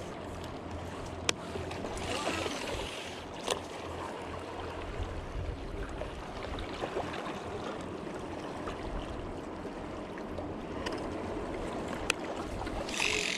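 Wind rumbling on the microphone over small waves lapping against shoreline rocks, with a few sharp clicks. Near the end the whir of a baitcasting reel's spool starts as a cast goes out.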